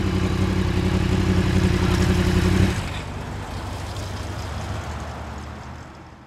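Yamaha YZF-R1's crossplane-crank inline-four running steadily at idle through a Yoshimura exhaust, until the engine note cuts off abruptly between two and three seconds in. Fainter low background noise follows and fades away.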